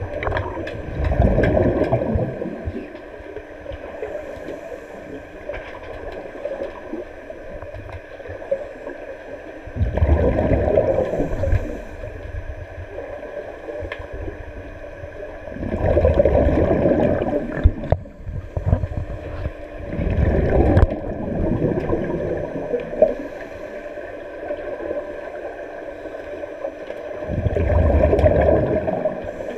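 Scuba divers' exhaled bubbles from their regulators, heard underwater: a bubbling rush about five times, each lasting a couple of seconds, with quieter stretches and a steady faint hum between.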